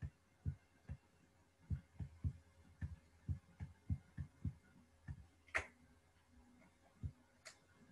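Faint soft thumps at irregular spacing, about two a second, from a pen writing strokes on a tablet or touchscreen. Two sharper, brighter clicks come near the end.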